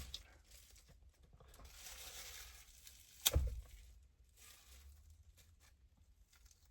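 Faint handling noise with one sharp click or knock about three seconds in.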